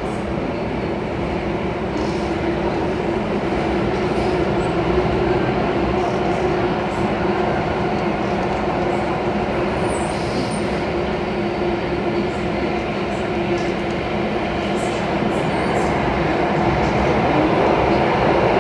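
Cabin running noise of an Alstom Metropolis C830C metro train travelling through a tunnel: a steady rumble with a steady hum, growing slightly louder near the end.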